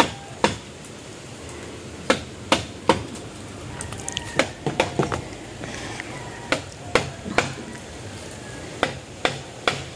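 Hammer blows on the wooden roof framing, sharp strikes at irregular spacing, some in quick pairs or small bunches with short pauses between.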